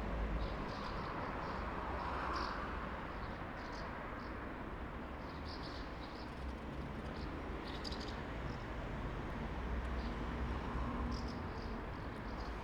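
Town roadside ambience: a steady low rumble of traffic, with a vehicle passing by about two seconds in, and clusters of short, high chirps coming and going throughout.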